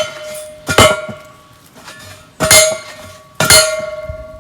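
Hand-held post driver slamming down onto a fence post to drive it into hard clay ground: heavy metallic clangs about a second apart, four in all, each one ringing on.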